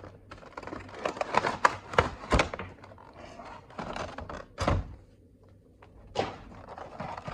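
Cardboard model box and its packaging being opened and handled by hand: a run of clicks, taps and scrapes, with a few louder thumps about two and four and a half seconds in.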